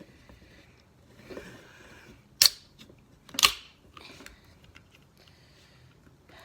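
Two sharp clicks about a second apart from handling a soda can, with faint rustling just before them.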